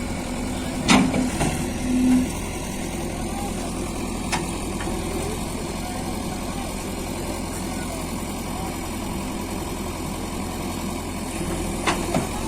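JCB 3DX backhoe loader's diesel engine running steadily, with a few sharp knocks (about a second in, around four seconds in, and near the end) and a short steady tone lasting about a second, starting about a second in.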